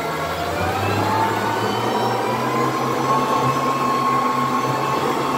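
River cruise boat's engine running under way, its whine rising in pitch over the first second or so and then holding steady, over the rush of water around the hull.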